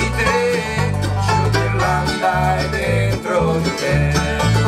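A live bluegrass band playing: banjo, mandolin and acoustic guitar picking over a bass guitar line that moves from note to note about every half second.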